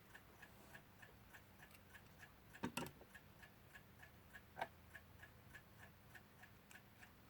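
Faint, steady ticking of a mechanical clock. About three seconds in there is a sharper knock of small metal clock parts being handled, and a lighter click comes a little later.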